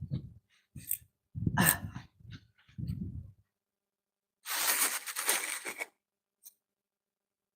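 A person breathing hard in several short, low bursts during the first three seconds or so. Then, about halfway through, a louder rush of noise lasts about a second and a half.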